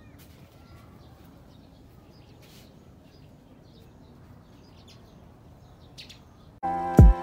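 Faint outdoor ambience with a few scattered bird chirps. Background music starts abruptly near the end, with a loud low hit as it comes in.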